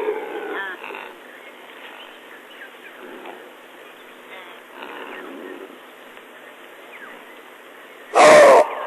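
Chacma baboons screaming and calling during a fight, scattered short shrill calls followed by one very loud call about 8 seconds in.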